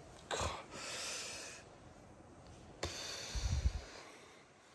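A man's long, heavy breath out through the nose and mouth, a tired sigh from someone stiff and aching as he stretches. Near the end comes a sharp click, then a low bump.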